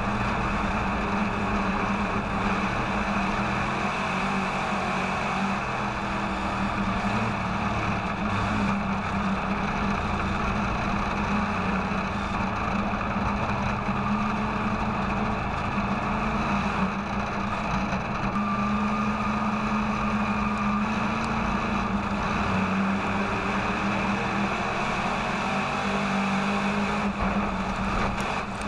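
IMCA Modified dirt-track race car's V8 engine running under way, heard from inside the cockpit, its note holding fairly steady with small rises and dips in pitch.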